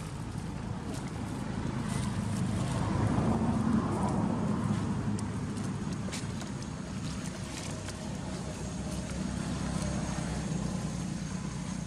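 A steady low rumble that swells about three to four seconds in and then eases off, with scattered faint clicks over it.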